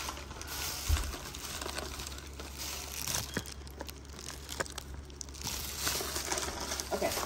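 Thin plastic grocery bag crinkling and rustling as items are handled and packed into it, with a dull thump about a second in.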